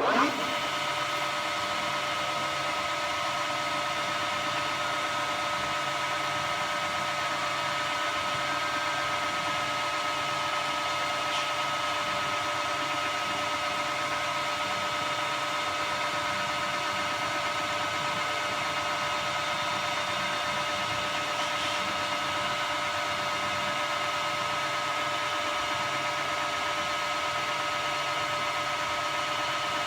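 Okuma Howa STM 2V vertical milling machine running at a steady speed, giving an even mechanical whine with several fixed tones.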